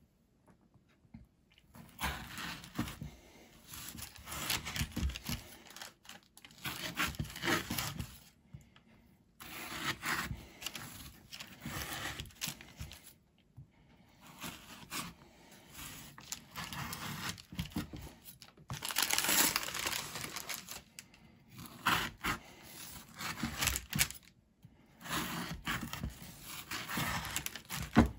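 A large kitchen knife cutting through a slab of tiffin made of chocolate, crushed digestive biscuits and Maltesers, on baking parchment. The blade crunches and scrapes through it while the parchment crinkles, in about six bouts of a few seconds each with short pauses between.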